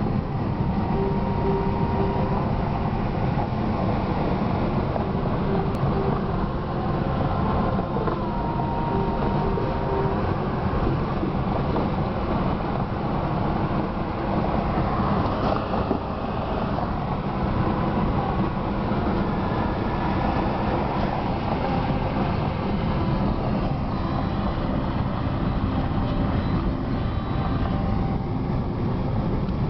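Steady road and engine noise heard inside a moving car's cabin at highway speed, with tyre rumble that stays even throughout.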